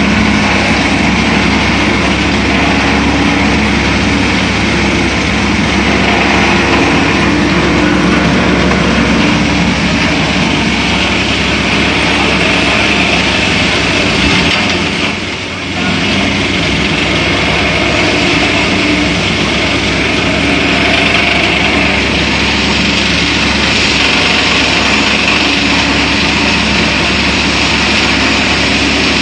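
Paddy thresher running steadily, a loud continuous mechanical noise, with a brief dip about halfway through.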